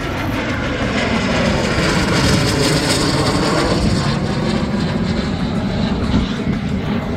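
Aero L-39 Albatros jet trainers making a low photo pass overhead. The jet engine noise swells to its loudest about two to three seconds in, then eases off slightly.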